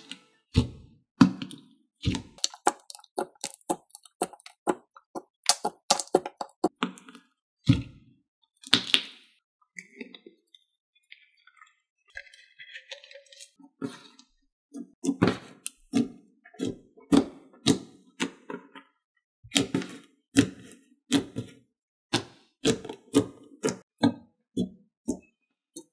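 Fingers poking, squeezing and kneading thick pink clay slime, giving an irregular run of short sharp clicks and pops, with a quieter stretch in the middle.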